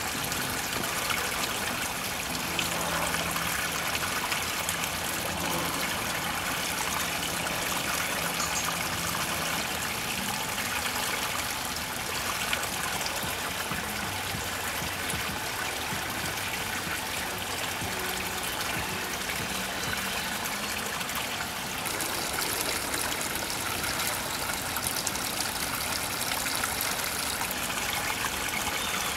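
Water trickling steadily, a small stream running over rocks into a shallow pool.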